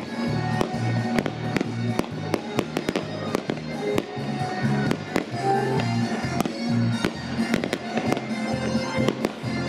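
Fireworks salute going off: a rapid, irregular string of bangs and crackles from bursting shells, over music with a steady, changing melody.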